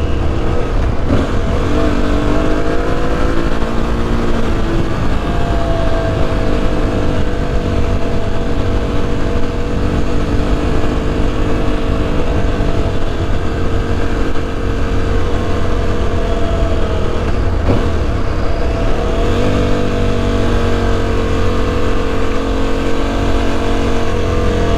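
Aprilia Tuareg 660's parallel-twin engine running under way at steady revs, its pitch rising early on and dipping then climbing again about twenty seconds in, over a low rumble of wind and road.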